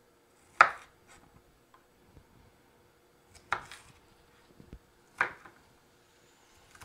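Knife chopping onion on a wooden cutting board: three sharp strikes, about a second in, at about three and a half seconds and past five seconds, with a few lighter taps between.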